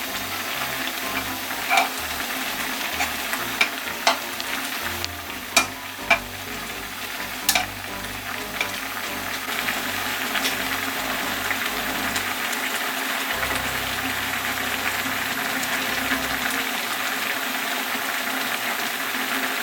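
Food sizzling steadily in a pan, with a utensil knocking sharply against the pan several times in the first eight seconds as it is stirred.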